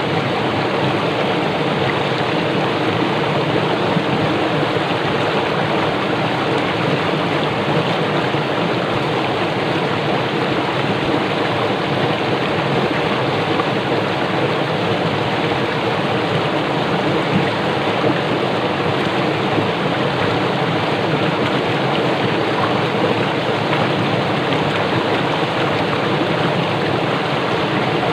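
Fast-flowing small river running over rocks and churning into bubbles: a steady, even rush of water.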